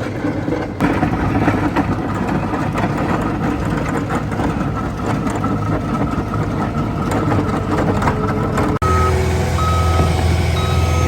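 Diesel road-works machinery running steadily. Near the end, a reversing alarm beeps at an even pace over a deep engine hum.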